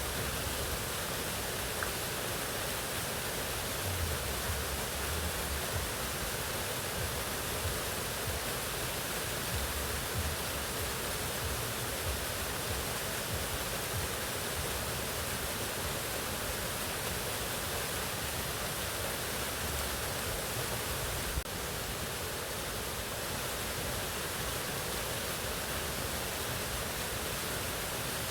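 Waterfall rushing in a steady, even roar of falling water, with a brief click and a slight drop in level about three-quarters of the way through.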